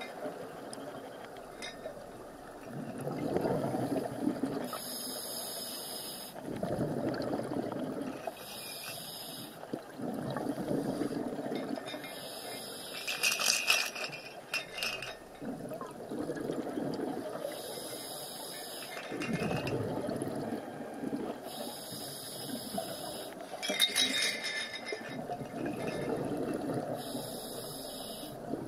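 Scuba regulator breathing underwater: a hissing draw followed by a rush of exhaust bubbles, repeating about every three to four seconds, with a faint metallic jingling from the wreck's mooring chains that sounds eerie.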